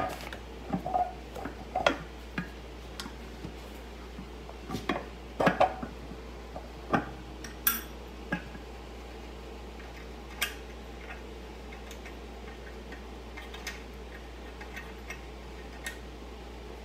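Irregular knocks and light metallic clinks, thick in the first eight seconds and sparse after, as a wheel and tire are pressed down onto an ATV secondary clutch to compress its spring and start the retaining nut.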